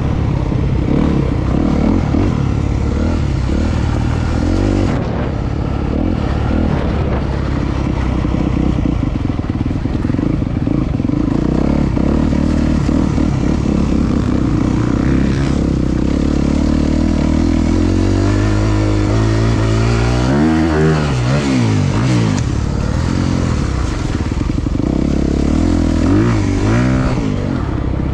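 Single-cylinder four-stroke engine of a Honda CRF250R motocross bike under way on a dirt track, pulling steadily through the gears. About two-thirds through it revs up sharply and drops away, and does so again briefly near the end.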